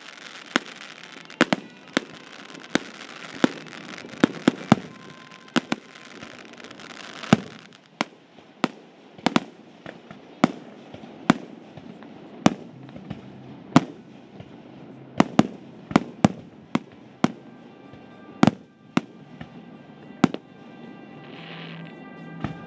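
Aerial fireworks shells bursting in a quick, irregular series of sharp booms, about one a second. A dense crackle fills the first seven or eight seconds, then thins out.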